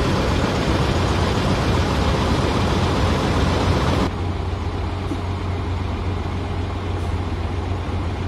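Diesel engines of parked intercity coaches idling, a steady low hum. About four seconds in, the sound drops a little and loses its hiss.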